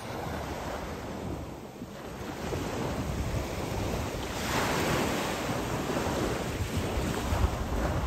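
Small waves breaking and washing up a sandy beach, with wind buffeting the microphone; the wash swells louder about halfway through.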